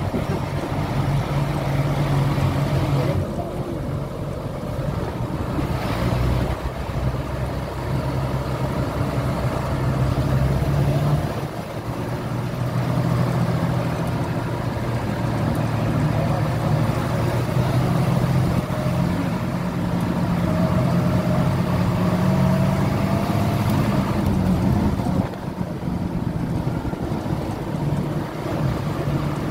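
Engine and road noise of a moving motor vehicle: a steady low engine hum over tyre and wind noise, dipping briefly about eleven seconds in and again near twenty-five seconds.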